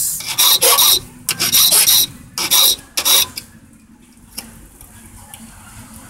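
Hand file rasping on the metal of a tubular lock key: about five quick strokes in the first three seconds, then it stops. The file is deepening a notch for a deep pin.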